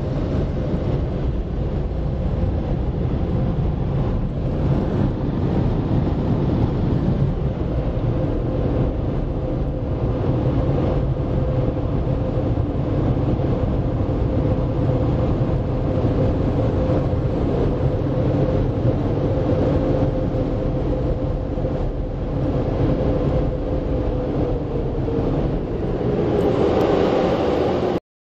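Car wash blower dryers running with a steady loud rush and a held whine, heard from inside the car. The whine fades and the sound changes near the end.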